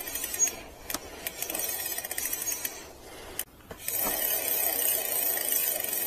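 Bicycle disc brake rotor turning against a slightly dragging caliper. There is a light, fast rhythmic ticking at first, then from about four seconds in a steady scraping hiss of the pads rubbing the rotor. The brake is not yet fully clear of the rotor.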